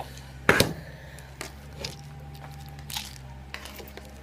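One sharp knock about half a second in, followed by a few faint clicks and small handling noises, over a steady low hum.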